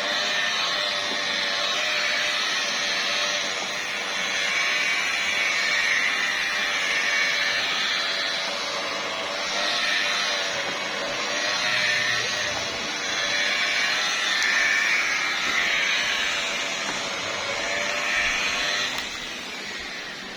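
Handheld electric paint polisher running on a car hood, its motor humming steadily under a hiss from the pad on the paint that swells and eases as it is moved. It winds down near the end.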